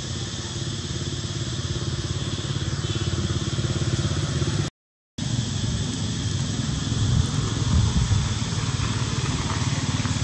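A steady low drone like an idling engine, under a steady high hiss. The sound cuts out completely for about half a second near the middle.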